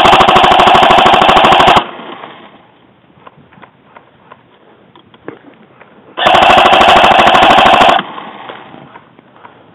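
Airsoft gun firing on full auto, a fast, even rattle of shots in two long bursts: one cutting off about two seconds in, the other starting about six seconds in and lasting about two seconds.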